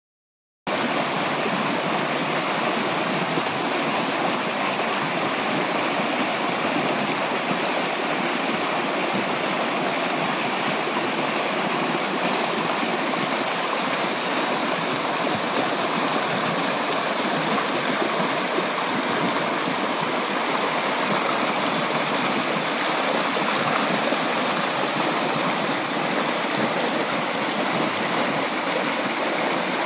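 Surface Creek rushing and burbling over rocks, a steady full water noise.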